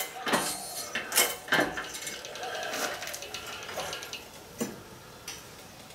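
Light metallic clinks and knocks of steel parts and tools being handled on a workshop bench, several separate strikes that are loudest in the first two seconds, with one more later on.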